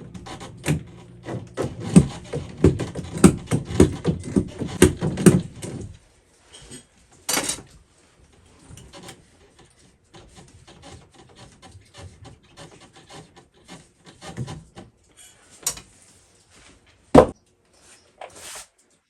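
Repeated scraping and knocking, about three strikes a second over a low steady hum, for the first six seconds. After that come scattered small clicks and rubs, with one sharp knock near the end.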